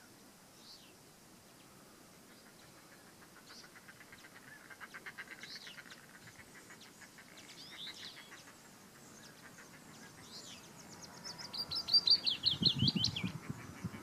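Willow warbler singing: a phrase of rapid notes that step down in pitch, about two seconds long, near the end. Fainter high notes come before it.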